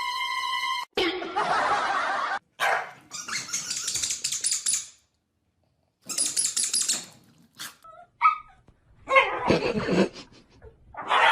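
Dogs barking and people laughing across a run of short clips, after a held musical tone cuts off about a second in.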